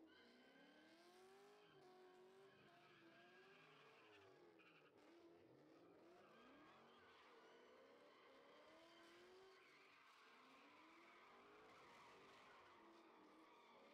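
Faint car engines revving up and down, several at once, their pitch rising and falling over each other throughout.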